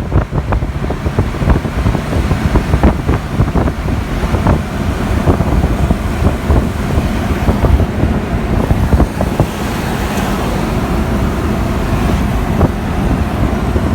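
Heavy wind buffeting the microphone, a loud, constant rumble and crackle over the noise of a moving vehicle.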